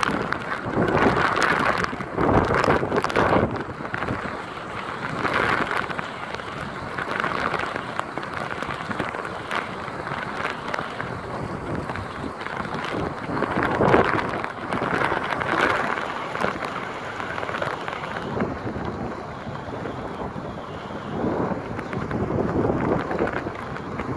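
Hurricane wind and heavy rain at the storm's peak, a constant rushing that swells and eases in gusts, with wind buffeting the microphone. The strongest gust comes about fourteen seconds in.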